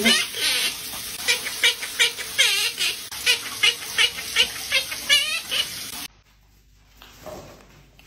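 Monk parakeet (quaker parrot) chattering the word 'bacon' over and over in its squeaky talking voice, about three times a second, with a few warbled notes among them. It stops abruptly about six seconds in.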